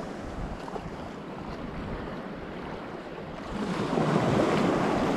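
Shallow ocean surf washing around the wader, with wind buffeting the microphone. It grows louder about three and a half seconds in.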